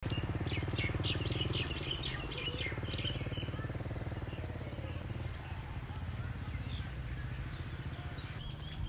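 Small birds chirping: many short, high calls, busiest in the first three seconds and thinning out after, over a steady low rumble.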